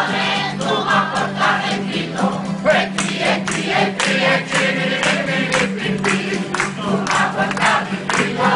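A group of folk singers singing a traditional Tuscan May song (canto del maggio) in chorus to strummed acoustic guitars, with hand-clapping in time that grows stronger about three seconds in.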